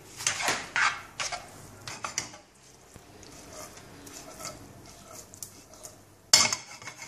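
Spatula stirring spaghetti with pancetta in a nonstick frying pan: a quick run of scraping, clattering strokes against the pan for the first two seconds or so, quieter stirring after, then a sharp clatter about six seconds in followed by a few more strokes.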